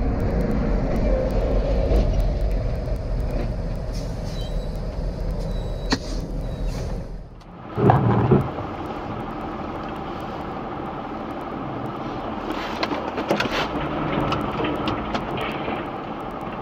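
Dashcam audio of driving: a heavy, low rumble of a truck on the highway heard from inside the cab. It cuts off about seven seconds in, and after a brief loud thump comes lighter, steady road and engine noise from inside a car, with scattered clicks.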